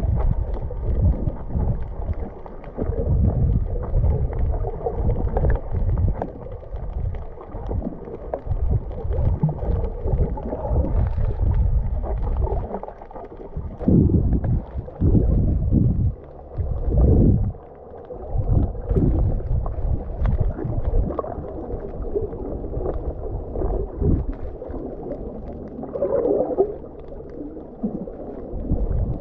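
Muffled, low rumbling of water moving against a camera held underwater, coming in irregular surges.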